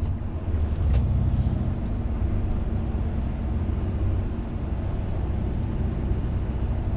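Steady low rumble of engine and road noise heard inside a moving vehicle's cabin.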